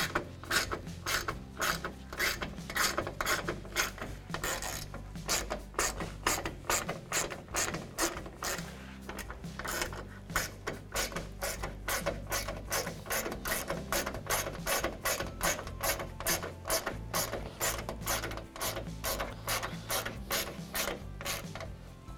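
Hand ratchet with a 10 mm socket clicking in repeated back-and-forth strokes as bolts are tightened, about two to three clicks a second, with a couple of brief pauses.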